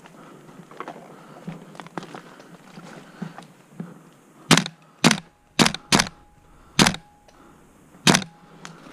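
Airsoft gun firing six single shots, sharp cracks spread over about four seconds, after a few seconds of soft footsteps.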